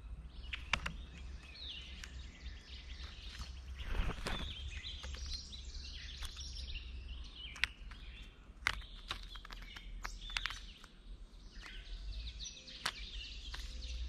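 Songbirds calling and chirping over a low outdoor rumble. Many sharp clicks and taps come from a blue jay landing on a peanut-filled tray feeder and picking up peanuts, with a louder rustle about four seconds in.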